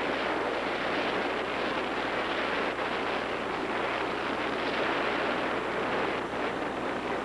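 Steady rush of wind and water from a small fishing boat under way at trolling speed, its motor running, with wind buffeting the microphone.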